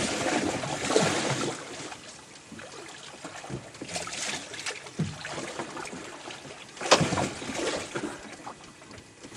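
Wind and water noise on a small boat at sea, with a few sharp knocks; the loudest knock comes about seven seconds in.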